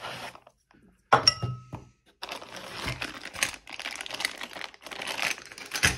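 Clear plastic accessory bag crinkling and rustling as it is lifted out of a foam packaging insert and handled. About a second in there is a sharp knock with a brief metallic ring.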